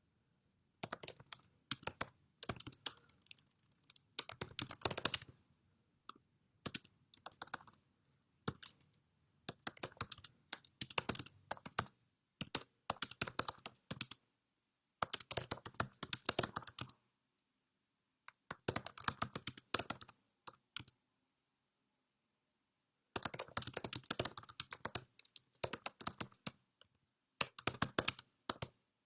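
Rapid small clicks in irregular bursts of one to two seconds, with silent pauses between them and a longer pause about three-quarters of the way through.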